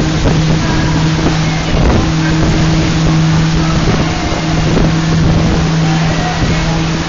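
Passenger boat's engine running at a steady pitch with a constant low hum, under a rush of wind and water noise.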